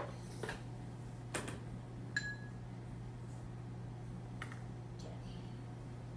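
Light clicks and taps of painting supplies being handled and put away on a table, with one short ringing clink about two seconds in, over a steady low hum.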